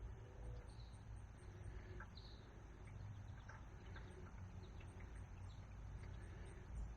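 Faint outdoor ambience: a mourning dove cooing softly, with an insect's evenly repeated high chirps running throughout.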